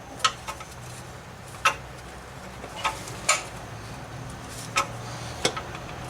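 Scattered sharp metallic clicks and knocks, about seven at uneven spacing, from a wrench working on a nut welded onto a broken exhaust stud. A low steady hum runs underneath.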